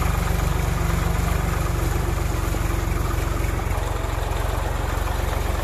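Swaraj 960 FE tractor's diesel engine running steadily with an even low throb.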